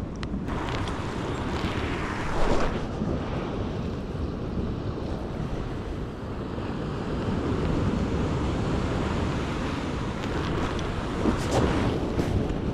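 Ocean swell washing against a rock ledge, with wind buffeting the microphone. A louder surge comes about two seconds in and again near the end.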